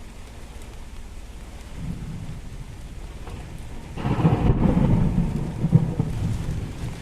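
Thunder rolling over steady rain: a low rumble swells about two seconds in, breaks into a loud peal with sharp cracks about four seconds in, and dies back near the end.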